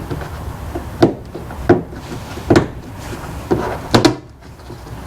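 Irregular sharp knocks and clunks, about six in five seconds, from hand work fitting a plastic mud flap and its screws to a pickup's wheel well.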